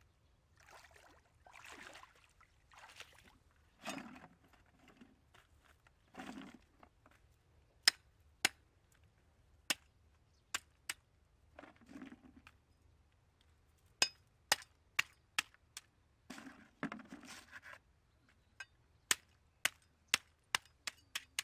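Water splashing and sloshing as someone wades in a shallow muddy pond. Then comes a run of sharp, irregular knocks, about one to two a second and quicker near the end, from something being struck on the bank.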